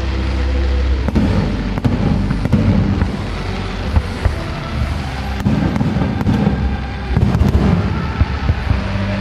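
Fireworks display: a rapid series of bangs and crackling reports over a continuous low rumble, with several sharper cracks about four and five seconds in and again near the end.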